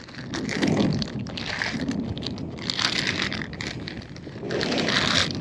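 Clear plastic zip-top bag of soft-plastic lures crinkling in several bouts as hands rummage through it, with wind buffeting the microphone.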